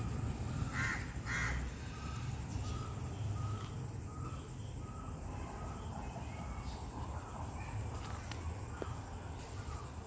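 A crow cawing twice about a second in, followed by fainter short calls repeating about twice a second, over a steady low rumble.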